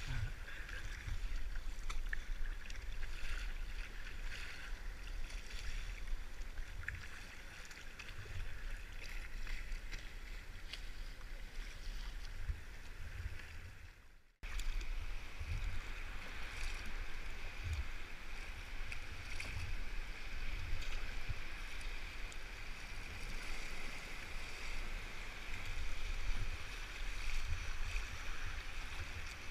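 Choppy sea water sloshing and splashing against a sea kayak's hull as it is paddled, with irregular low rumbles of wind on the microphone. The sound drops out suddenly about halfway through, then carries on.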